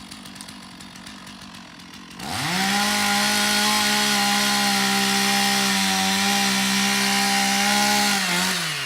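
Two-stroke chainsaw at low revs, then opened up to full throttle about two seconds in and held at a steady high pitch for about six seconds while cutting into the trunk, before the throttle is released and the pitch falls near the end.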